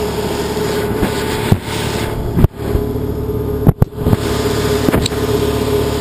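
A steady motor hum with a held tone runs throughout. Over it come several sharp knocks and bumps from the camera being handled and set in place, the loudest about two and a half seconds and nearly four seconds in.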